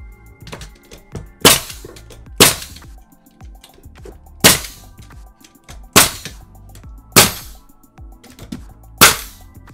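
Pneumatic nail gun firing six times, driving nails into wooden boards. The sharp bangs come at an uneven pace, one to two seconds apart.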